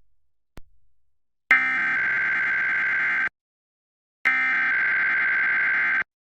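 Emergency Alert System SAME header: two bursts of a buzzy digital data tone, each nearly two seconds long, the first about a second and a half in and the second about a second after it ends. These are the coded header bursts that open an EAS Required Monthly Test, and they are loud.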